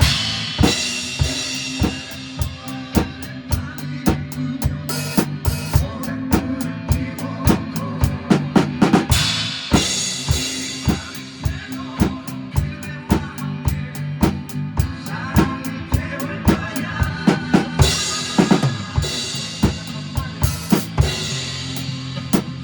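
Drum kit played to backing music: kick and snare keep a steady beat, with a cymbal crash about every nine seconds.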